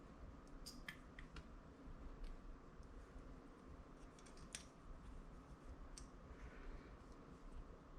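Near silence: room tone with a few faint, scattered clicks of small carburettor parts being handled, a cluster in the first second and a half and single ones later.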